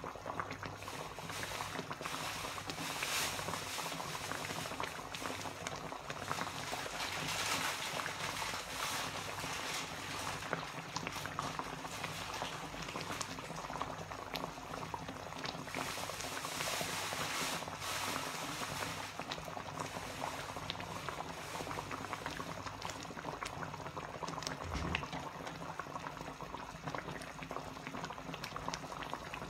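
Thick red gravy simmering in a wide pan on a gas stove: a steady bubbling and popping that swells louder a few times.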